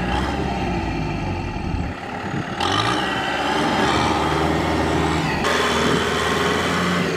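Kubota M6040SU tractor's four-cylinder diesel engine working hard under load, revving up about two and a half seconds in, while its spinning rear tyres churn and splash through flooded paddy mud.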